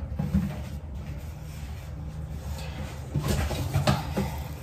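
A few light knocks and rustles about three seconds in as a cardboard box of stain-remover powder is reached for and handled, over a steady low hum.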